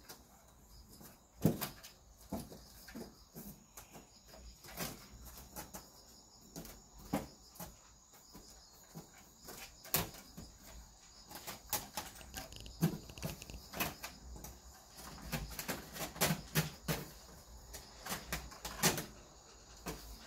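Scattered knocks, taps and scratches of kittens' paws and claws on wooden pallet slats as two kittens clamber and paw at each other, coming irregularly with a few sharper knocks among the lighter taps.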